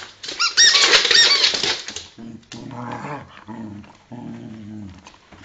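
A dog's rubber squeaky toy squeaking rapidly and loudly several times as the dog bites it, followed by the dog growling in three low bursts.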